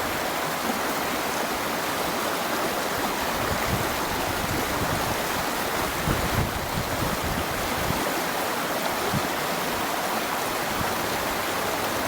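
Stream water rushing steadily over the rocks of a river pool, an even hiss, with a few soft low bumps around the middle.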